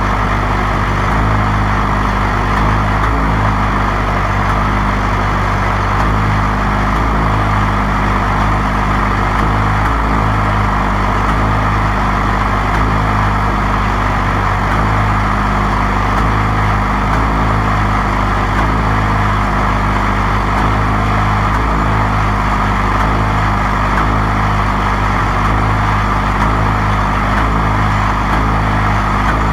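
1947 Caterpillar D7 crawler running steadily at an even speed during a cold start in sub-zero weather.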